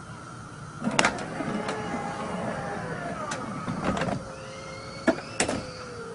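Electric motor drive of a power drop-down car door whining as it raises the door panel out of the sill, the whine falling in pitch, with several clicks and knocks and a clunk about four seconds in as the door shuts. A second, rising motor whine follows near the end.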